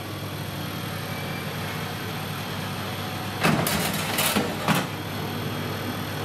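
Metal baking tray sliding into an electric wall oven and the oven door being shut: a few clattering knocks about three and a half to five seconds in, over a steady low hum.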